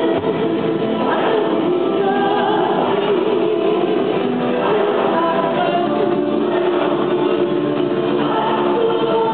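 Music with several voices singing together, holding long notes like a choir.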